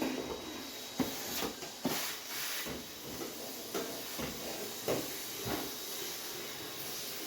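Kitchen cleaning noises: a steady hiss of wiping or scrubbing, broken by several light knocks like cupboards, drawers or items being handled.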